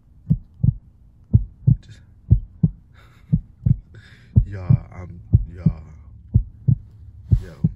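Heartbeat sound effect: low double thumps, lub-dub, about once a second, over a low steady hum.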